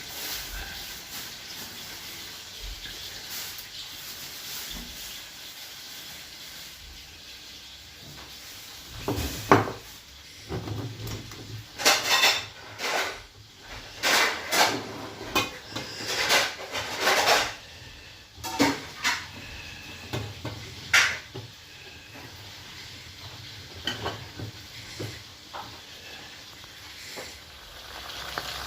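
Dishes and cooking utensils clinking and clattering in a run of sharp knocks through the middle, over a steady low sizzle of frying.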